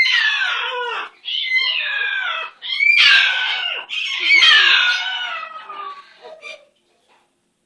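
Pet green parrot giving a run of loud, harsh squawking calls, each about a second long and falling in pitch, the fourth one the loudest, then trailing off into a few small chirps.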